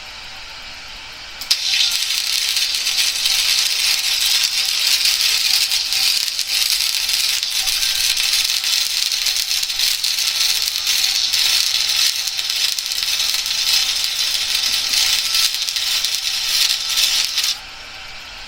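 Wire-feed welder arc crackling steadily as a weld bead is run, starting about a second and a half in and cutting off suddenly near the end.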